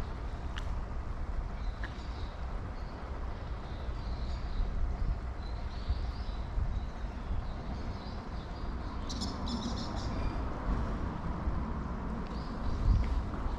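Outdoor ambience: a steady low rumble with faint bird chirps now and then, and a brief cluster of clicks about nine seconds in.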